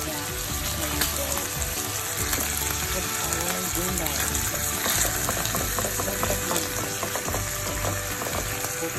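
Pork steaks sizzling as they fry in butter in a pan, a steady crackle. A few light taps come around the middle as vegetables are set in with chopsticks.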